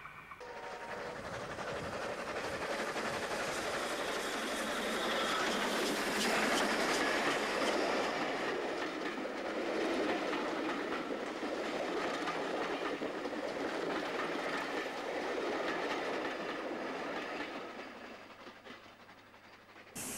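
Steam-hauled passenger train, a New South Wales 38 class Pacific locomotive and its carriages, running past on the rails with steady train noise. The noise fades away over the last few seconds as the train recedes.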